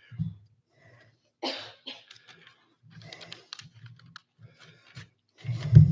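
A cough and scattered small clicks and rustles from a congregation, with a louder knock near the end.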